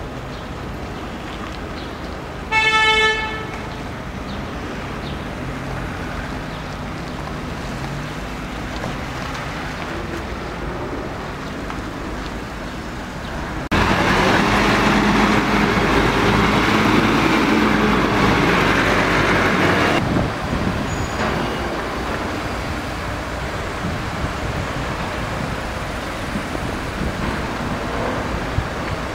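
City street traffic, with a car horn sounding once, briefly, about three seconds in. Near the middle comes a louder, steady stretch of noise of about six seconds that starts and stops abruptly.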